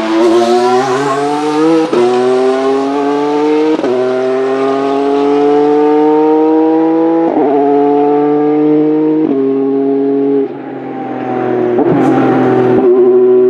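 Isotta Fraschini Tipo 6 LMH-C's 3.0-litre V6 hybrid race engine accelerating hard away from the pit-lane speed limit, the note climbing in each gear and dropping sharply at several quick upshifts.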